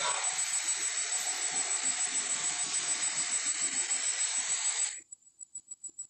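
Tyrannosaurus sound effect from an animated film: a loud, hissing roar with no clear pitch that starts suddenly and cuts off after about five seconds. It is followed by a faint, rapid rattle of about nine pulses a second.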